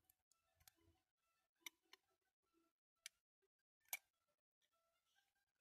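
Near silence, broken by a handful of faint, sharp clicks and taps as a small diecast toy caravan with a riveted tinplate base is handled and turned over in the hands.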